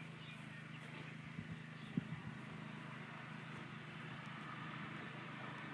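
A car driving along a gravel road, a faint steady rumble that grows a little louder toward the end, with a single light click about two seconds in.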